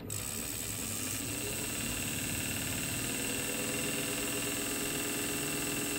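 Sun 404 distributor test machine starting up abruptly and spinning a distributor, rising in pitch for about two seconds as it comes up to roughly 2500 rpm, then running steadily with a high whine.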